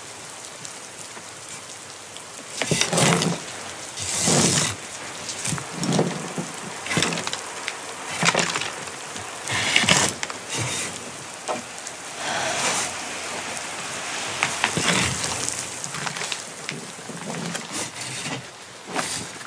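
A series of short rustles with soft wooden knocks, one every one to two seconds: fabric and wooden goods being handled and gathered up off a wooden floor.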